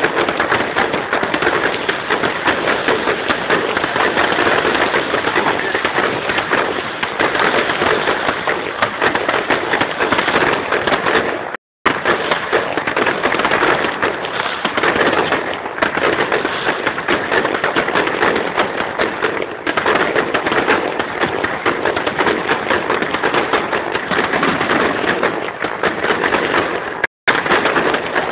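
Fireworks display: a dense, unbroken crackle of rapid pops and bangs from many shells going off together. The sound cuts out completely twice for a moment.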